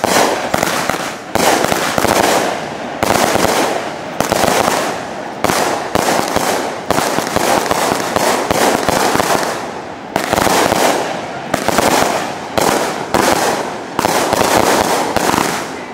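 Several consumer firework cakes lit at once, firing an unbroken string of launches and aerial bursts. The bangs come about one or two a second, with dense hissing noise between them.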